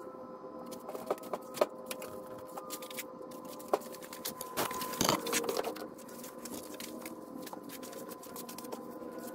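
Handling noises: scattered clicks and knocks from the power tool and its cord being gathered up and carried, busiest about halfway through, over a faint steady hum.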